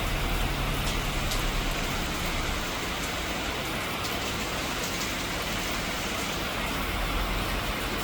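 Heavy summer rain pouring steadily, with scattered sharp drop hits and a low rumble underneath.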